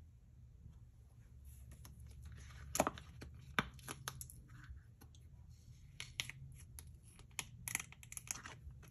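Flexible silicone mold bent and twisted by hand to pop a melted-crayon teddy bear out: a run of scattered crackles and clicks as the silicone peels away from the wax, the two sharpest snaps about three seconds in.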